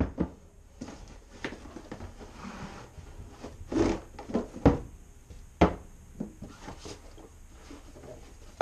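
Long cardboard boxes handled and shaken, with coil-over shock absorbers set down on a wooden workbench in a few sharp knocks, the loudest near the middle.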